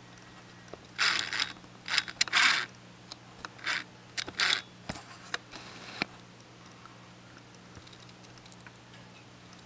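A string of short scraping and rattling noises, about a dozen in five seconds, the loudest near the start, from objects being handled and moved. A steady low hum runs underneath.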